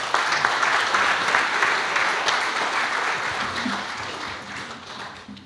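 Audience applause, many people clapping, steady at first and then dying away toward the end.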